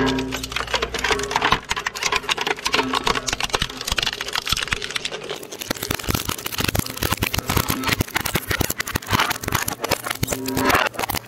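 Twin-shaft shredder's toothed cutter discs chewing a clear plexiglass motorcycle-helmet visor: a dense, rapid run of sharp cracks and snaps as the brittle plastic breaks, over the steady hum of the shredder's drive.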